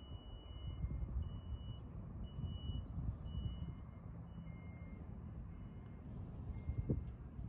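Faint vehicle reversing alarms beeping about once a second, in two slightly different pitches, over a steady low rumble.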